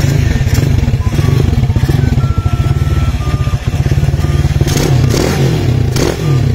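A freshly rebuilt 200cc motorcycle engine idling steadily just after its first electric start, with a fast, even low pulse. It swells briefly a couple of times, around five and six seconds in.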